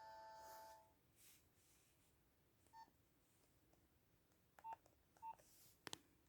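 A held ringtone note from a Nokia mobile phone stops about a second in. After that come a few faint, short keypad beeps and clicks as the phone's buttons are pressed.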